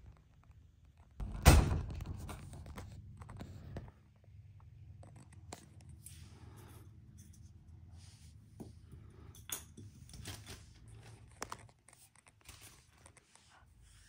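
Kittens playing on carpet: scattered light taps and scratches, with one loud thump about a second and a half in, followed by a couple of seconds of rustling.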